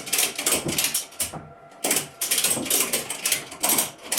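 Ratchet strap being cranked tight, its pawl clicking in quick runs of strokes, with a short pause about a second and a half in.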